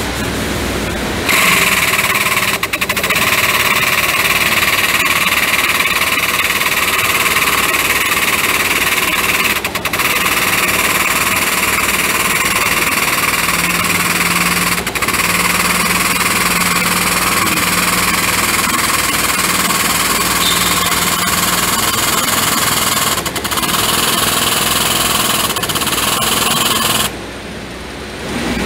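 Foot-pedal hydraulic pump of a car frame-straightening bench running steadily as it raises the bench platform on its lift cylinder. It starts about a second in, dips briefly twice, and cuts off shortly before the end.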